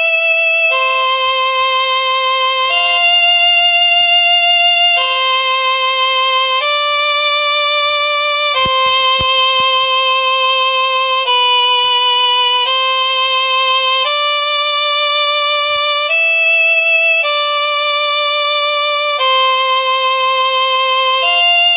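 A ringtone melody played as a single line of long held notes, about a dozen of them, each lasting one to three seconds and moving up or down by small steps, with a slight waver in pitch.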